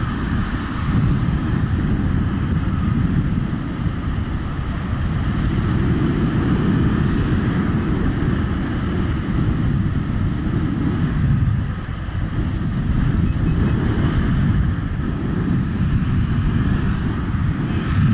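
Steady wind rush and rumble on the microphone while riding an electric unicycle at speed.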